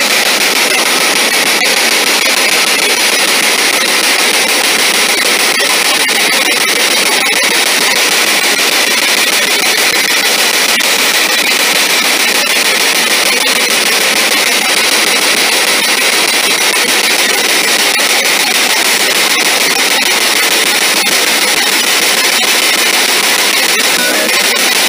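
Loud, steady radio static from a spirit box (ITC research device) played through a small Altec Lansing speaker, an even hiss with faint scattered clicks.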